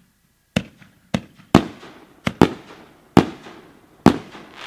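Aerial fireworks shells firing and breaking: about seven sharp booms in quick succession, each trailing off in a rolling echo.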